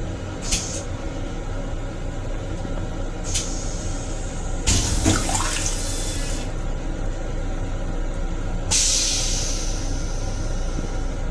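The stainless-steel toilet in an M7 railcar restroom flushing: a rush of water swirling down the bowl for about two seconds, with a gurgle that falls in pitch. Two brief hisses come before it, and a longer hiss starts near the end and fades.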